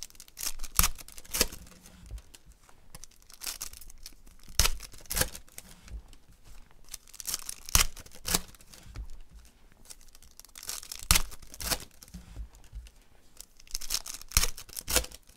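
Foil trading-card pack wrappers being torn open and crinkled by hand: a run of irregular sharp rips and crackles.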